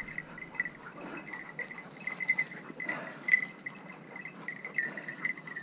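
Small bell on a hunting dog's collar jingling irregularly as the dog moves through the brush.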